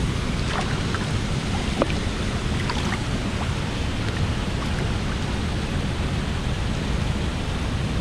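Steady rush of river water, with a few small splashes and drips as a large flathead catfish is held in the current and let go.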